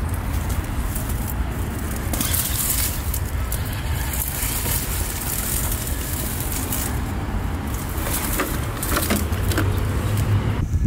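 A Traxxas TRX-4 Sport RC truck crawling through a garden bed, its tires crunching over mulch while leafy plants rustle and crackle against it, with many small snaps throughout.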